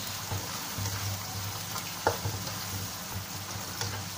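Sliced tomatoes and onions sizzling in hot oil in a wok as they are stirred with a spatula, which knocks sharply against the pan about two seconds in and more lightly near the end.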